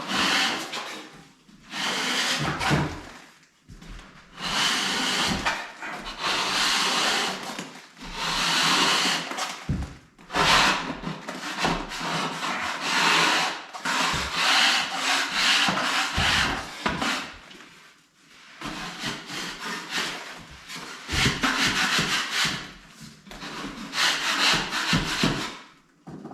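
Popcorn ceiling texture, softened with a water mist, being scraped off with a hand scraper: about a dozen long rasping strokes, each one to two seconds, with short pauses between them.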